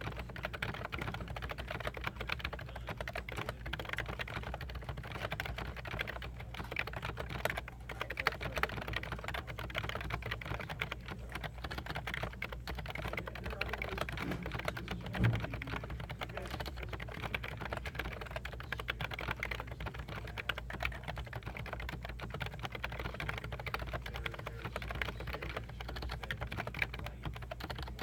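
Topre Realforce 104U Silent keyboard, modded with BKE Redux Light domes, being typed on continuously at a fast pace: a dense, unbroken stream of quick key presses. One heavier thump comes about halfway through.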